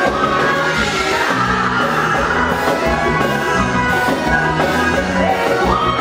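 Live band music on a large outdoor PA: a sung lead vocal over electric guitar, bass and a steady beat.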